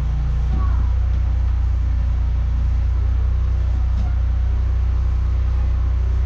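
Engine of a high-pressure drain jetter running at a steady speed, a deep even hum, as the jet works at a sewer blockage.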